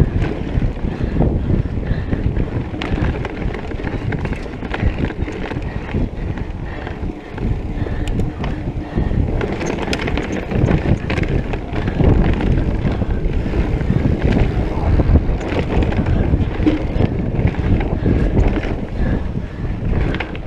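Wind buffeting the microphone of a camera on a mountain bike ridden fast along dirt singletrack, over a steady rumble of knobby tyres on dirt and many small rattles and knocks from the bike over bumps.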